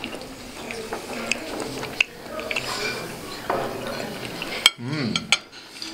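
Knives and forks clinking and scraping on ceramic plates as steak is cut and eaten, a few sharp clicks standing out, the loudest near the end.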